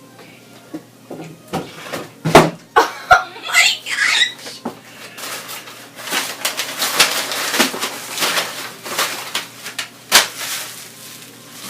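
A cardboard box and its packing being handled and pulled open. A few sharp knocks and some squeaky scraping come first, then several seconds of crinkling and rustling wrapping, with one sharp click near the end.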